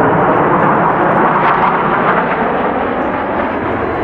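Loud, steady rushing jet noise from a formation of Blue Angels F/A-18 Super Hornets, twin-turbofan fighter jets, flying past overhead.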